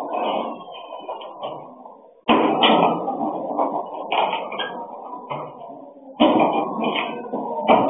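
Hollow knocks and thuds of plastic gallon water bottles being handled at a pickup's load bed, heard through a security camera's microphone. There are sharp loud onsets about two and six seconds in, each fading over a second or two.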